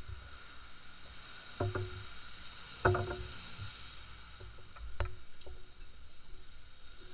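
Spoons and chopsticks clinking against ceramic bowls and glasses during a meal: a few sharp clinks, each with a short ring, the loudest about three seconds in.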